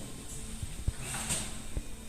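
A few faint, short low knocks and a brief scrape from work on the flue pipes.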